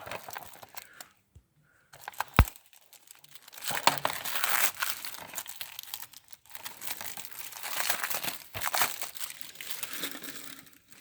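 Plastic wrapping being torn and crumpled off a new DVD case: one sharp click about two and a half seconds in, then two long stretches of crinkling.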